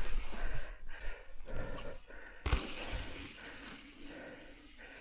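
Mountain bike rolling over a dirt trail: wind noise and tyre rumble, with knocks from the bike hitting bumps, the hardest about halfway through. It then fades to a quieter hiss.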